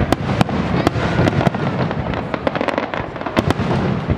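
Aerial fireworks display: a rapid, irregular string of sharp bangs from bursting shells over a continuous rumble and crackle.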